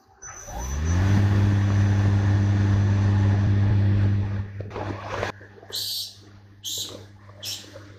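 Doosan CNC lathe spindle spinning up with a rising whine, then running with a steady hum. About four seconds in the hum drops, and a rush of noise is followed by several short hissing bursts as the tool turret moves in to the part.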